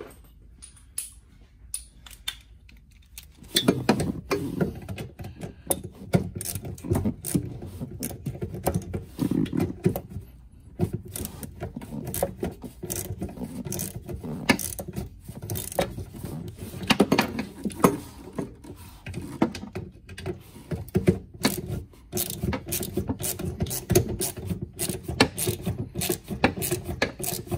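Ratchet wrench with an extension clicking in quick runs while it turns the small 10 mm terminal nuts on a rusted golf cart solenoid. The clicking starts a few seconds in.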